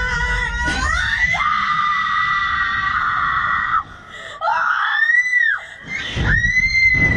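A woman screaming while being flung on a slingshot ride: a long high scream held for about three seconds, then two shorter screams that rise and fall in pitch, with short breaths between.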